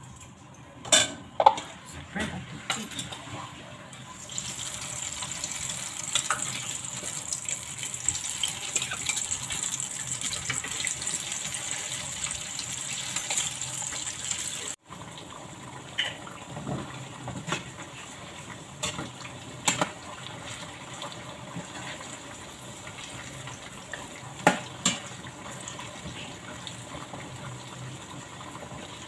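Flour-coated chicken pieces deep-frying in hot oil in a pan, a steady high sizzle that is louder in the first half, with scattered clinks and taps of a utensil against the pan.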